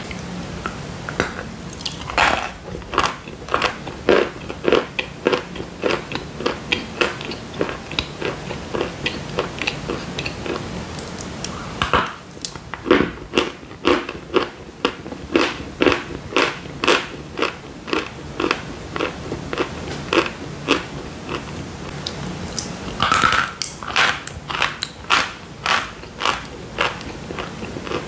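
Dry chalk bars being bitten and chewed: a steady run of crunches about two a second, with louder bites about two seconds in, near the middle and near the end.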